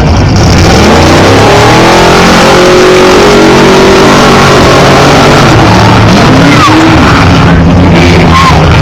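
Loud off-road race vehicle engines at a race start: one engine climbs in pitch for about two seconds and then falls away, and a second engine climbs in pitch near the end, over a constant dense engine noise.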